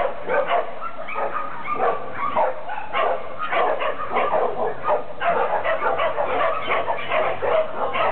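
Dog barking over and over in short, rapid barks, several a second.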